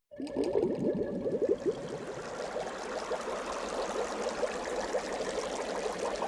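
Water trickling and gurgling steadily, with a burst of small bubbling notes in the first couple of seconds.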